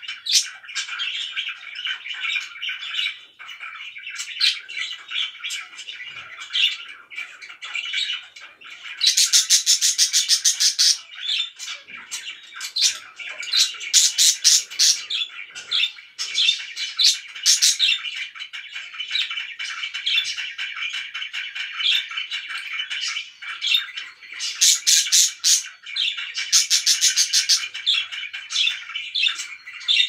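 A flock of caged budgerigars chattering and warbling without a break, with loud bursts of rapid, harsh repeated calls about five times.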